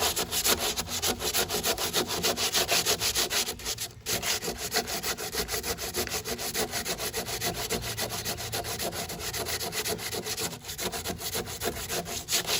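Sandpaper rubbed back and forth by hand over cured Bondo body filler on a car panel, at about four strokes a second, with a brief pause about four seconds in.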